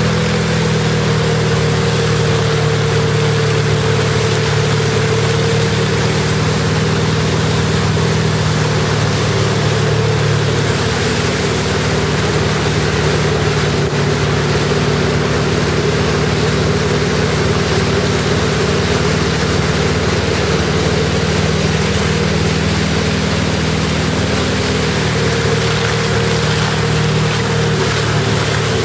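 Tow boat's engine running steadily at speed, with the rush of water from its wake.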